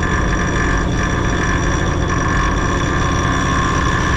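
Minneapolis Moline A4T 1600 tractor engine running steadily, heard from the cab, with a steady high-pitched whine over it while the clutch pedal is held down and the gear lever is worked. The tractor's clutch is oil-soaked and slipping.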